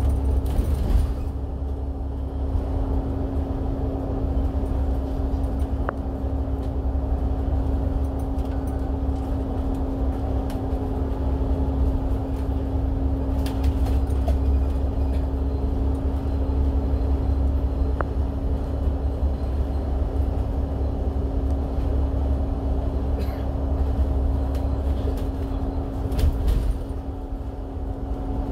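Bus cruising at highway speed, heard from inside the cabin: a steady low rumble of engine and road noise with a constant hum, and a few light rattles.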